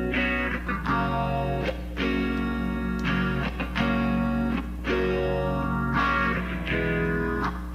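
Guitar strumming the song's intro chords, a new chord about every second, with a steady low hum underneath.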